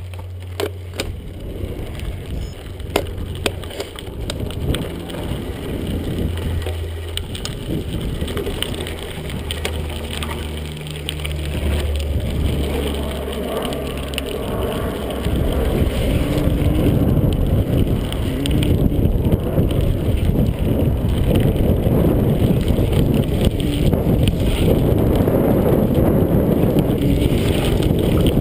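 Mountain bike rolling over a dirt singletrack: tyre noise on the dirt and the bike rattling, with wind on the microphone. It grows louder about halfway through.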